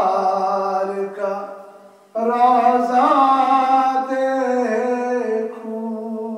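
A man singing a naat, a devotional poem in praise of the Prophet Muhammad, unaccompanied and through a microphone. He holds long, ornamented notes, pauses for breath about two seconds in, then starts a new phrase.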